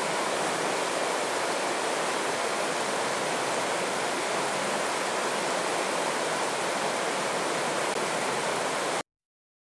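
Fast mountain river rushing over boulders through a whitewater riffle: a steady, even rush of water. It cuts off abruptly about nine seconds in.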